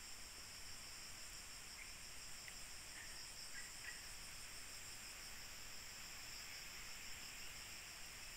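Faint, steady high-pitched chorus of insects, with a few faint short chirps between about two and four seconds in.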